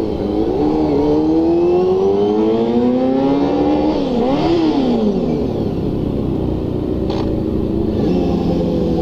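Honda inline-four motorcycle engine heard from the rider's seat while riding. The revs climb steadily for about four seconds, rise briefly once more and then fall away, then run steady at lower revs.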